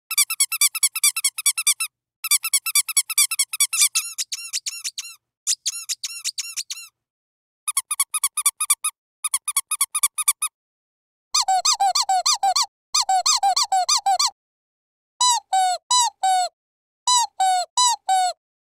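Squeaky dog toy squeezed rapidly over and over, in runs of quick squeaks broken by short pauses; the squeaks are lower-pitched in the second half.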